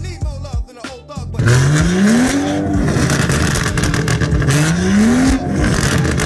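Rap music cuts off about a second in, giving way to a BMW M-performance 1 Series hatchback's turbocharged straight-six being revved twice on the spot through its exhaust, each rev rising and then falling back.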